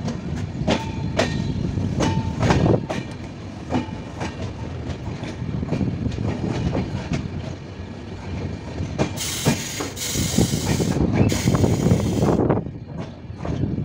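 Passenger train rolling slowly into a station, its wheels clacking over rail joints with brief squeals. About nine seconds in comes a loud hiss lasting about three seconds, broken once.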